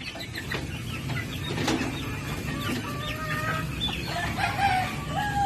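Several chickens clucking and calling over one another, the short calls growing busier in the second half.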